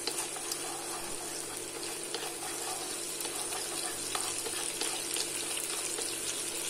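Crushed garlic sizzling steadily in sesame and vegetable oil in a wok, with light scattered taps of wooden chopsticks stirring it.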